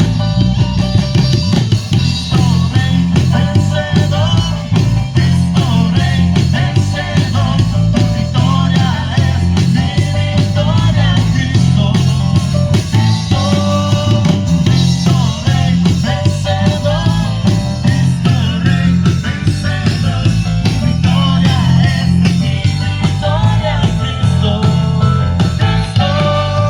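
Live band playing a full song at a sound check: a drum kit keeping a steady beat under a strong bass line, with guitar and a melody line over it.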